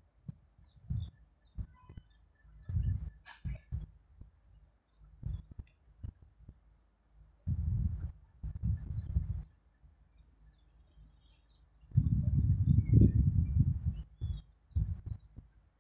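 Wind buffeting the microphone in irregular low gusts, the strongest a couple of seconds before the end, with small birds chirping and twittering throughout.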